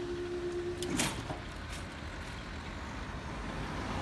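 A level crossing's Yodalarm sounds a steady tone while the barriers rise. It cuts off about a second in with a single sharp clunk. Road traffic engines rumble after that, getting louder near the end as the waiting cars start across.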